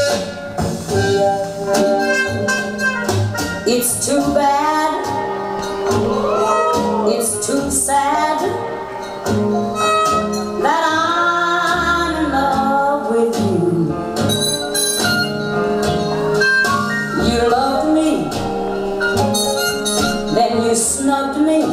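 Blues music playing, with a lead melody that bends in pitch over a steady bass line.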